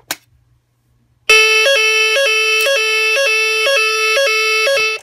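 A sharp click, then about a second later an old Lumatic DS-SA autonomous fire alarm sounder (BAAS Sa) sounds the French standard evacuation signal. A short higher note and a longer lower note alternate about twice a second, loud and steady, until it cuts off suddenly near the end.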